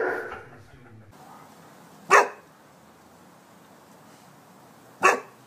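Rhodesian Ridgeback barking: two single short barks about three seconds apart, after the tail of an earlier bark fades out in the first second.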